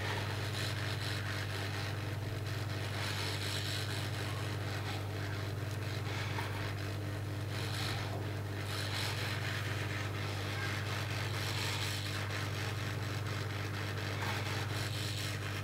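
Hot air rework station blowing steadily onto a circuit board chip: an even hiss of air over a low mains hum. It is drying off cleaning liquid and driving off oxidation residue from the IC's pins.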